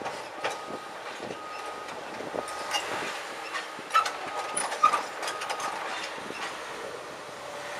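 Komatsu excavator working on a steel rock gondola: scattered metallic clanks and knocks, the two loudest about four and five seconds in, while a back-up alarm beeps repeatedly through the first half.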